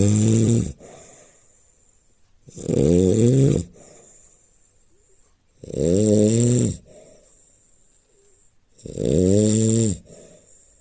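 Loud snoring in a steady rhythm: four snores about three seconds apart, each about a second long and falling slightly in pitch.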